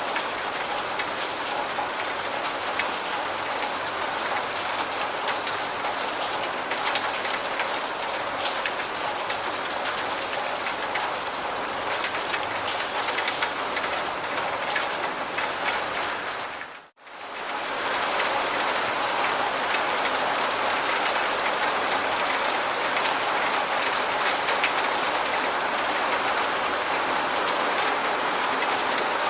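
Steady rain falling, a dense hiss with many fine drop ticks. About two-thirds of the way in, it fades almost to silence for a moment and comes straight back a little louder.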